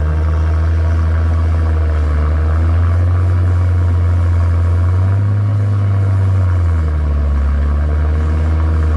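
Heavy diesel engine running, its pitch shifting up and down a few times as the revs change.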